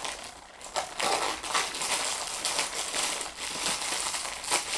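Sheet of gift wrapping paper crinkling and rustling as it is handled and unfolded by hand, faint at first and busier from about a second in.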